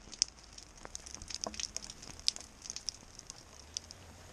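Monsoon raindrops hitting wet paving close to the microphone: an irregular patter of sharp ticks over a faint hiss of rain, stopping near the end.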